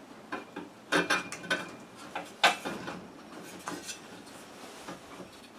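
Scattered metallic clinks and knocks of small engine parts and hand tools being handled during reassembly, with the sharpest clank about two and a half seconds in.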